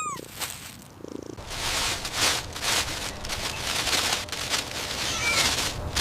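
A cat's sounds: a short, faint meow about five seconds in, over a steady rough noise that starts about a second and a half in.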